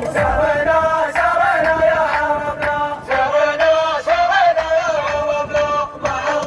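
A shaila, a Gulf Arabic chanted song: a male voice chants a long, slowly wavering melodic line over a music backing.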